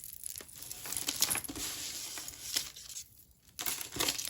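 Crinkling and rustling of plastic packaging while loose costume jewelry is handled, with small sharp clicks. It stops briefly about three seconds in.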